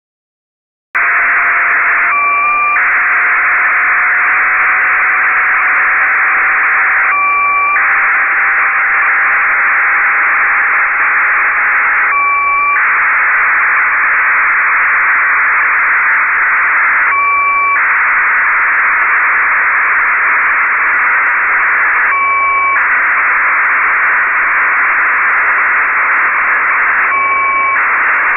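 Icom transceiver in upper-sideband mode receiving the NAYIF-1 cubesat's 2-metre downlink: steady loud receiver hiss that starts about a second in. Short data bursts of about half a second come every five seconds, six in all, over a faint tone that slowly rises in pitch.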